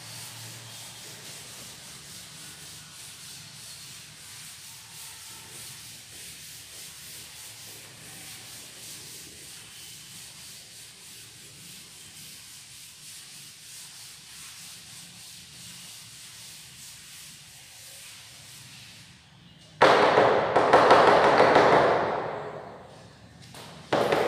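Chalk being rubbed off a chalkboard: a faint, steady wiping for most of the time, then much louder, brisk scrubbing for about three seconds near the end, and again just at the end.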